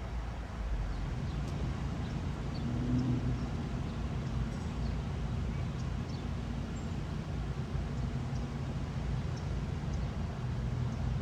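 Steady low rumble of road traffic with a low hum, a little louder from about a second in.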